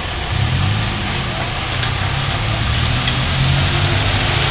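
Motor vehicle engines running as a car, a motorcycle and a van move over a railroad grade crossing: a steady low engine hum that grows a little louder about half a second in.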